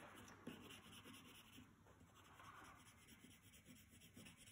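Faint scratching of a coloured pencil shading on paper in short hatching strokes, blending one colour over another.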